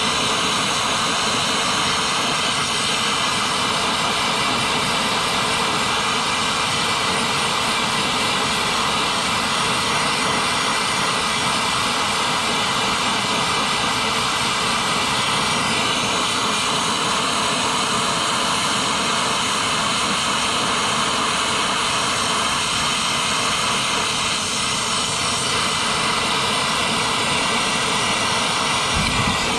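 Brazing torch flame running with a steady, even rush as it heats a copper refrigerant line joint.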